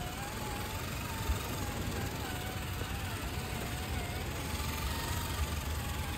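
Electric motors and geared drivetrains of RC crawler trucks, two Traxxas TRX-4 Defenders and an Axial SCX10 III Jeep Gladiator, whining as they crawl through sand. The pitch wavers up and down with the throttle, over a steady low rumble.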